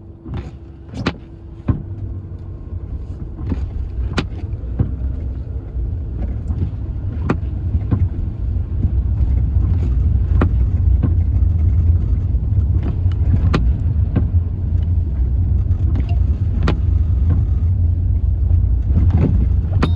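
Car driving: a low rumble of engine and road noise that builds over the first ten seconds or so and then holds steady, with scattered sharp clicks and knocks.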